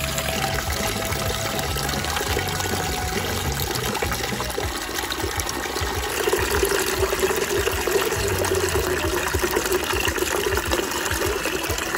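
Tap water pouring steadily into a plastic tub and splashing into the water already in it. About six seconds in, the splashing gets louder and fuller.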